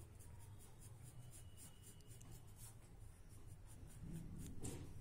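Graphite pencil sketching on drawing paper: faint, light scratchy strokes, a little louder near the end.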